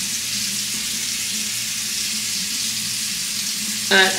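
Bathroom sink tap running steadily into the basin, an even hiss of water.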